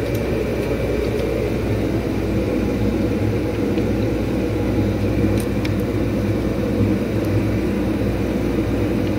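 A steady, loud, low machine drone that runs without change, with a couple of light clicks about five and a half seconds in.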